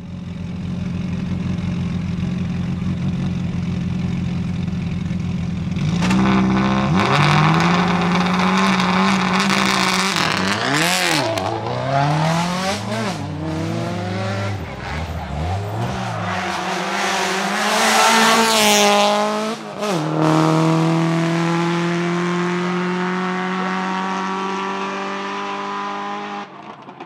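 A Subaru Impreza WRX STI Spec C N12's EJ20 turbocharged flat-four with equal-length headers idles steadily. About six seconds in it gets louder, then it is revved in a series of throttle blips and one long high rev that cuts off sharply about twenty seconds in. The car then pulls away with the pitch climbing steadily, fading near the end.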